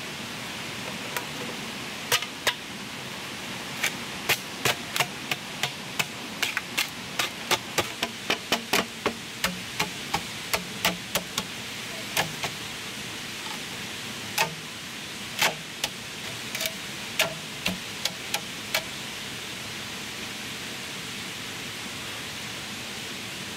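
A run of sharp knocks, irregular at about one or two a second, over a steady rushing hiss. The knocks stop a few seconds before the end, leaving only the hiss.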